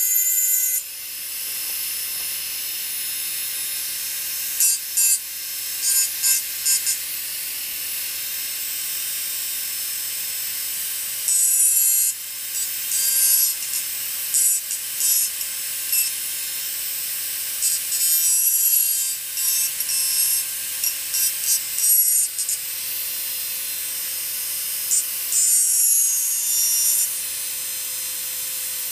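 Rotary glass-engraving tool with a fine burr cutting lines into a drinking glass: gritty, high scratching strokes in irregular bursts, some brief and some lasting a second or two, over the tool's steady motor hum.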